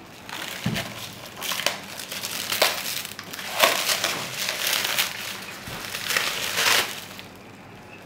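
Plastic packaging film and bubble wrap crinkling and crackling in irregular bursts as hands tear and pull it off a metal part. It dies down near the end.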